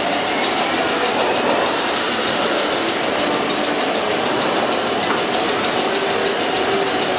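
Vintage R1/R9 New York City subway cars running through the station, a steady rumble with rapid clicks of the wheels over rail joints.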